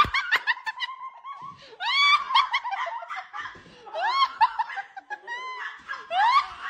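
A person laughing in high-pitched, squealing bursts: several rising shrieks with quick giggles between them.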